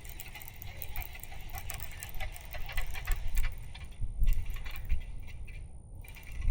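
Fishing reel being cranked to work a sinking spoon lure, giving a run of small rapid clicks and rattles, with wind rumbling on the microphone.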